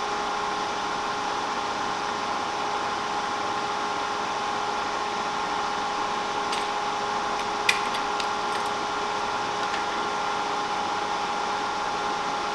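Kearney & Trecker horizontal milling machine running with a steady hum of several fixed tones over a hiss, likely with the hiss of mist-coolant air, while it is being set up for a cut. A few light clicks come in the middle, the sharpest a little past halfway.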